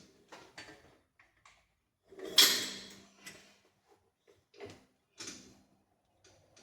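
A series of short knocks and bumps, with one much louder bang about two and a half seconds in that rings briefly before fading.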